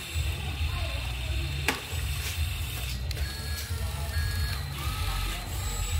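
Radio-controlled model excavator's small electric motors and plastic gears whining and clicking as it works its arm, with several short whines in the second half and a sharp click near the middle, over a steady low rumble.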